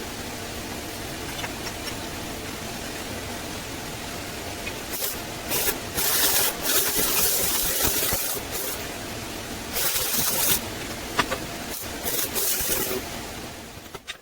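Metal-workshop machine noise: a steady mechanical running sound with a series of short, loud bursts of hissing from about five seconds in, fading away near the end.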